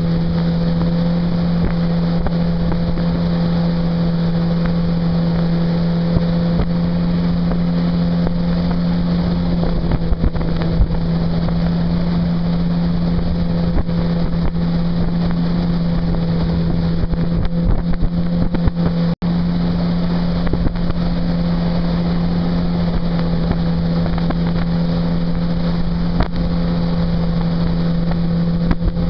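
Mercury 60/40 outboard jet motor running at a steady cruising speed, a constant drone, with wind buffeting the microphone. The sound drops out for an instant about 19 seconds in.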